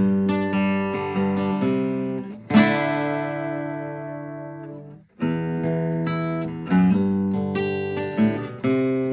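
Seagull Folk acoustic guitar being played: a run of notes, then a chord about two and a half seconds in left to ring and fade, a brief gap just after the halfway point, and playing picking up again.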